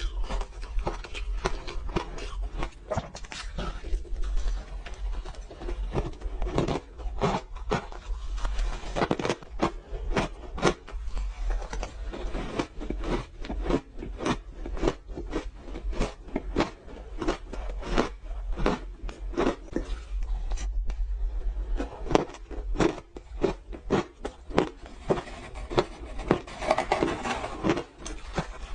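Frozen orange ice being bitten and chewed close to the microphone: a dense, irregular run of sharp crunches, several a second, over a steady low hum.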